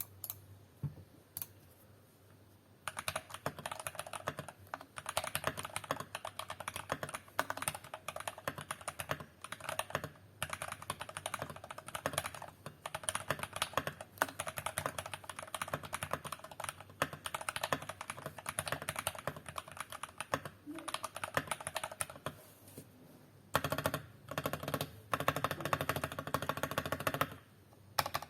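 Rapid, steady typing on a VortexSeries GT-6 mechanical keyboard with lubed Jwick Black linear switches and Maxfit67 keycaps, picked up through a phone microphone. It starts about three seconds in and pauses briefly near the end. Then come repeated presses with a deeper clack, the lubed and tuned stabilized keys such as the spacebar being tested.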